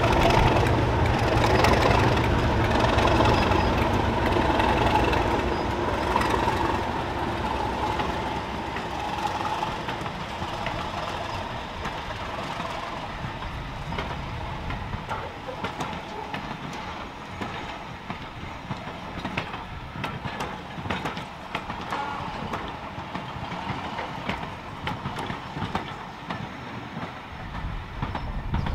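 Class 37 diesel-electric locomotive pulling a train of coaches away; its engine is loud at first and fades over the first several seconds. The coaches' wheels then click and clatter over the rail joints as they roll past.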